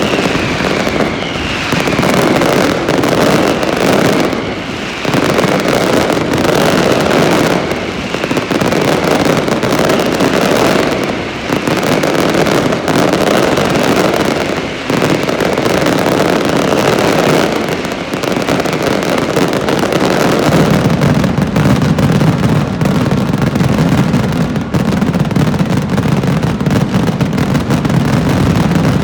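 Dense, continuous fireworks barrage: crackling and bangs with no break, and a falling whistle about a second in. From about two-thirds of the way through, the sound turns deeper and more continuous.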